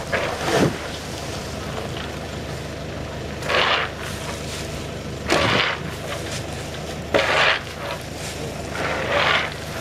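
Loads of harvested coffee cherries being handled in bulk: a short rushing, rustling noise about every two seconds, five times, over a steady low hum.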